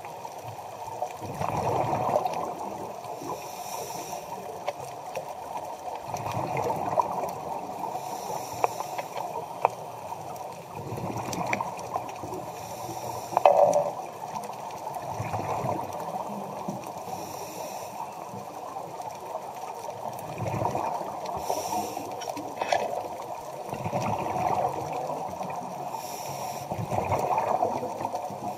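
Underwater sound picked up through a camera housing: a scuba diver's exhaled bubbles gurgle up in swells about every four to five seconds over a steady watery hiss. Scattered sharp clicks run through it.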